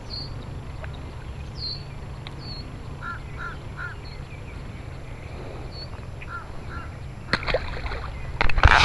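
Bird calls: a quick run of three short calls, then two more a few seconds later, with thin high chirps from small birds in between. Loud knocks and rustling break in near the end.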